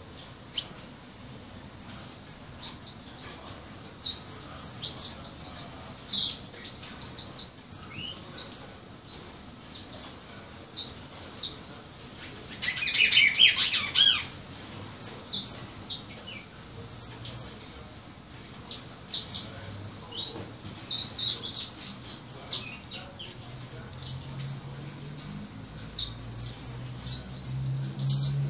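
Young songbird practising its song: a long, unbroken run of rapid high chirps and twitters, with a louder, fuller phrase about halfway through. The song is still unfinished, with much to clean up.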